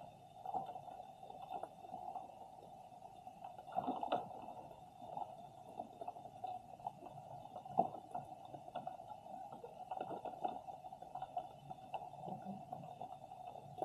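Underwater sound picked up by a submerged camera: a steady muffled hum with scattered, irregular clicks and knocks, the loudest about four and eight seconds in.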